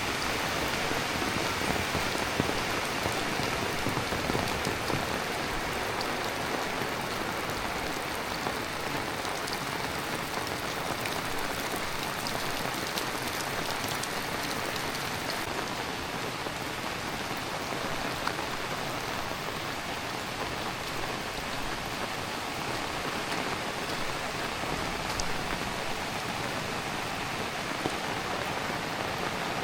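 Heavy rain falling steadily, a dense even hiss with scattered sharp taps of single drops.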